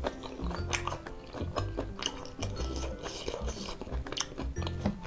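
Close-miked chewing and biting of goat satay, with many short sharp clicks and crunches, over background music with a repeating bass line.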